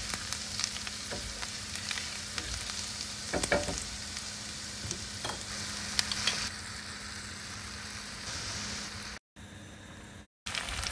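Chopped garlic sizzling in melted butter in a skillet, stirred with a spatula that scrapes and clicks against the pan. The sound cuts out briefly twice near the end.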